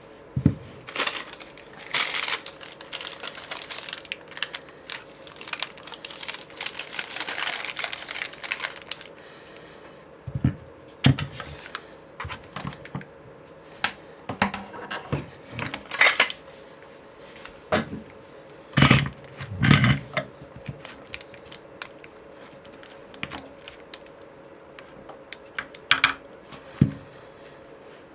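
Irregular clicks, taps and knocks with short rustles, the handling of tools and parts on a workbench during a guitar neck repair. A few heavier knocks come about two-thirds through, over a faint steady hum.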